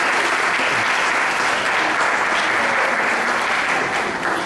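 A roomful of people applauding steadily, with a few voices mixed in.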